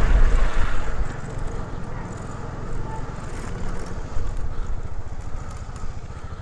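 Motorcycle engine running as the bike is ridden, louder for about the first second and then easing to a lower, steady run.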